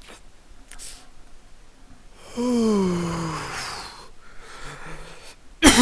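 A person letting out a long, groaning exhale that falls in pitch, then a sharp cough near the end. This is the harsh exhale and coughing after taking a dab hit.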